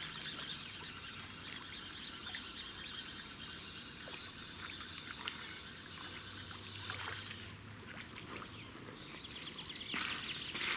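Faint trickling of water, with a few soft clicks and a denser patch of handling noise near the end.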